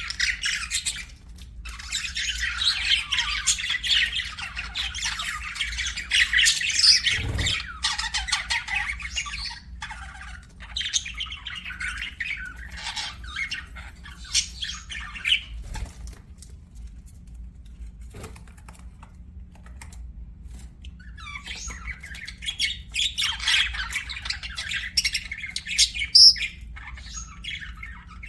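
Budgerigars chattering and chirping in fast, warbling strings of squawks and tweets. The chatter is dense for the first several seconds, thins to scattered calls in the middle, then builds again near the end.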